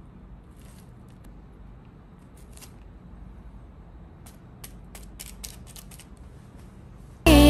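Faint, scattered light clicks and taps of nuts being picked from a plate and pressed into soft dough balls on a parchment-lined baking tray, over a low steady background. Loud music comes in suddenly near the end.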